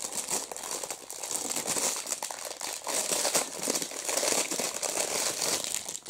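Thin plastic packaging crinkling steadily as it is handled, a dense crackle that stops just at the end.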